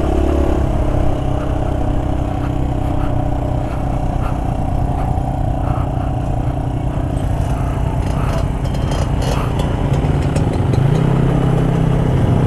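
Dirt bike engine running steadily under way on a rough dirt trail, with light clatter from the bike. About two seconds before the end a louder engine note comes in, rising in pitch.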